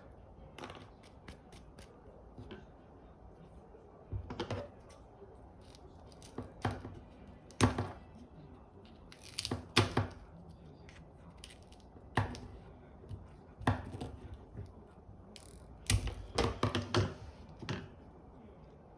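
Irregular knocks and clatters of a treat-dispensing ball being nosed and rolled about by a dog, some single and some in quick clusters.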